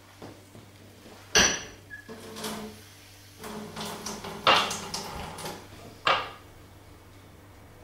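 Kitchen dishes and utensils being handled, clattering softly, with three sharp knocks: the loudest about a second and a half in, then about halfway through and again about six seconds in.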